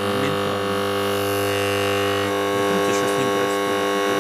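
Microwave oven transformer, rewound with a thick high-current secondary, humming steadily at mains frequency with its overtones while heavily loaded by a near short through a wire that is glowing red hot.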